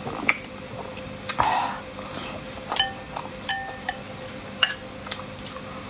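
Metal spoon clinking against a ceramic bowl of chili oil sauce, about five separate clinks, a couple of them ringing briefly. About a second and a half in there is a short slurp of sauce.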